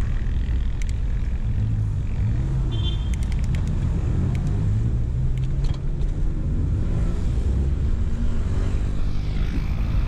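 Dense, steady road rumble of a bicycle riding fast downhill on rough, pot-holed pavement, with a few sharp rattles about a second in and again around three seconds in.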